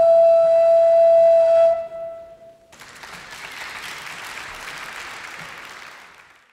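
A long wooden shepherd's horn holding one steady note that stops about two seconds in, followed by audience applause that fades out.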